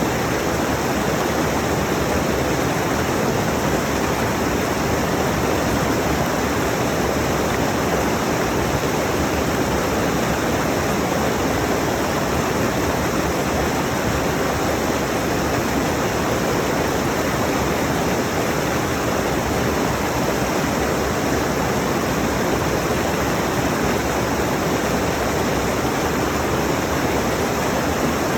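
Stream rushing steadily: a constant, even wash of water noise, fullest in the low-middle range, with no change in level.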